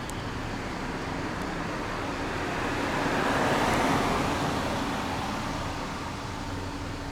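A road vehicle passing by, its noise swelling to its loudest about four seconds in and then fading away.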